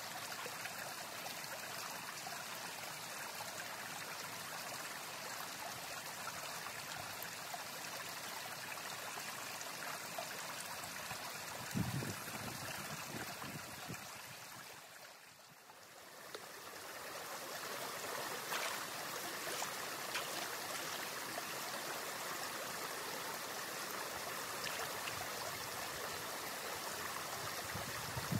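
Forest stream flowing, a steady rush of water. A few soft low thumps come in just before the middle, then the water sound fades briefly and comes back.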